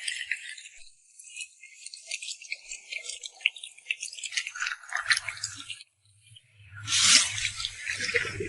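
Chopped fresh tomatoes frying in hot soybean oil, sizzling and crackling with many fine pops, with scrapes and squelches of stirring as tomato paste goes into the pan. The sound drops out briefly around six seconds, then a louder burst of sizzling comes about a second later.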